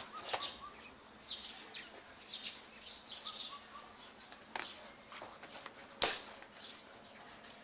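Birds chirping, with sharp slaps and scuffs of bare feet and hands striking stone paving during acrobatic martial-arts moves. The loudest is a single sharp slap about six seconds in.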